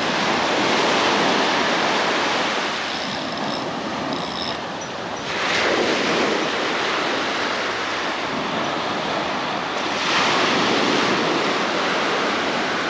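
Small waves breaking and washing up on a sandy shore, the surf swelling louder in surges about every four to five seconds.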